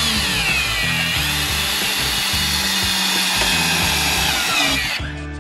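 Milwaukee M18 cordless drill driving a long screw into wood: the motor's whine drops in pitch over the first second as the screw bites, then runs steadily until it stops about five seconds in.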